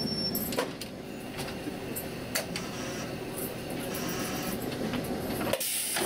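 Cab ambience of a Kumamoto Electric Railway 5000-series electric railcar: a steady running rumble with scattered sharp clicks. The low rumble drops away shortly before the end.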